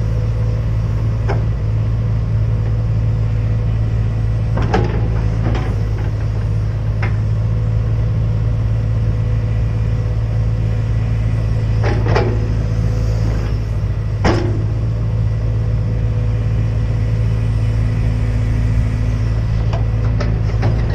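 Excavator's diesel engine running steadily under work, with several short sharp clanks and knocks from the working machine scattered through.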